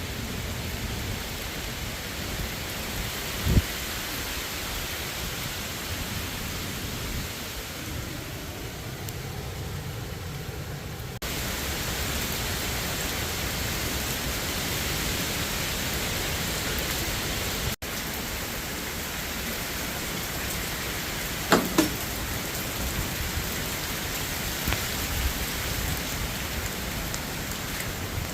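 Hurricane winds and driving rain: a steady rushing noise that jumps abruptly in level twice where the recording cuts, with a short knock a few seconds in and two close knocks past the middle.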